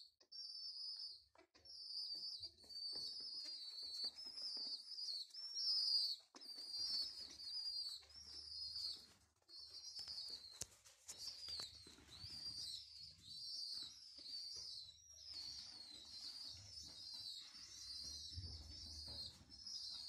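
Homing pigeon squabs begging for food: a steady run of short, high, wavering peeps, about one or two a second, with bursts of wing flapping.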